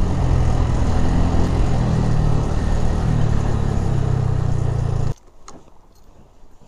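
Motorcycle engine running steadily with a low hum, the sound cutting off abruptly about five seconds in, leaving a quiet background with a few faint ticks.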